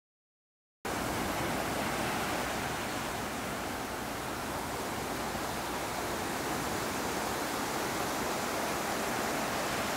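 Small waves washing up on a sandy beach, a steady rushing wash that cuts in abruptly from silence just under a second in.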